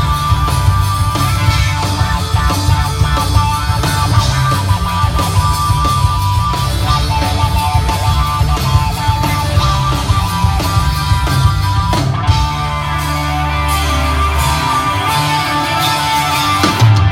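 A rock band playing live, with electric guitar over bass and drums and long held high notes, heard from within the crowd.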